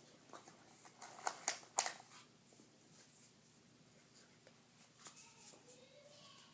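Plastic clicks and clacks from a Nerf Modulus Ionfire toy blaster being handled: a quick cluster of sharp clacks about a second in, then a few fainter clicks near the end.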